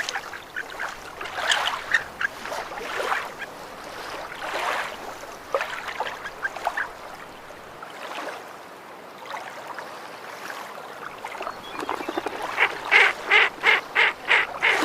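Waterfowl calling: scattered honking calls, then a quick run of about seven loud calls near the end.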